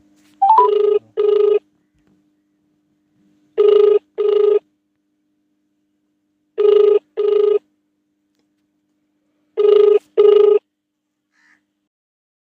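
Telephone ringing on a call that has not yet been answered, in a double-ring pattern: four pairs of short rings about three seconds apart.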